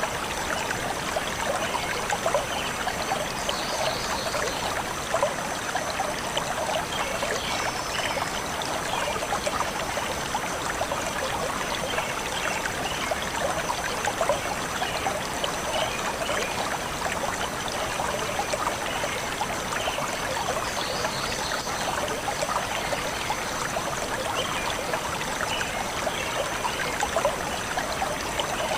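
Stream water flowing and trickling steadily over stones.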